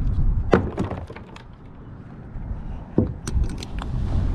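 A handful of sharp metallic knocks and clinks, a few near the start and more about three seconds in, as a rusty iron find pulled up on a fishing magnet is handled, over a steady low rumble.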